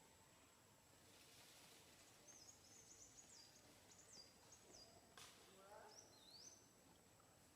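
Near silence with faint, high-pitched bird chirps: a short run of quick sliding notes, then a few more near the end. A single soft click about five seconds in.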